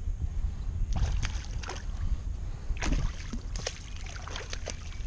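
Steady low wind rumble on the microphone, with a handful of short knocks and splashy noises as a hooked fish is brought alongside a kayak.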